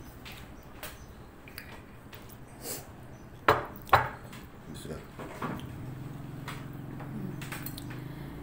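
Knocks and light clatter of dishes on a wooden dining table, with two sharp knocks about half a second apart midway through.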